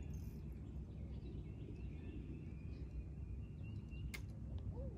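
Lakeshore outdoor ambience: a low, steady rumble with faint bird chirps, and one sharp click about four seconds in.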